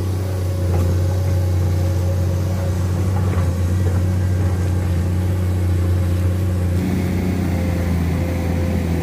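Komatsu PC210 excavator's diesel engine running with a steady low drone, its tone shifting slightly about seven seconds in.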